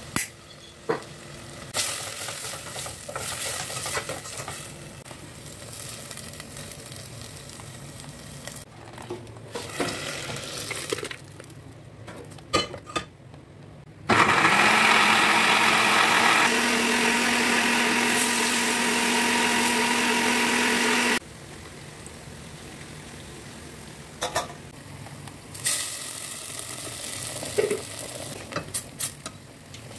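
Wooden spoon stirring sautéed onion and tomato in a steel pot, with scattered clinks, then an electric blender grinding the cooked onion and tomato into paste for about seven seconds: it starts and stops abruptly, is the loudest sound, and its pitch steps up partway through. Afterwards the blended paste sizzles softly in the pot, with a few clinks.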